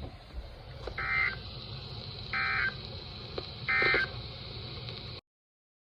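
Three short bursts of NOAA Weather Radio SAME digital data tones, each a fraction of a second long and about a second and a half apart, over steady radio hiss. This is the end-of-message (EOM) code that closes the severe thunderstorm warning broadcast. The audio cuts off abruptly to silence about five seconds in.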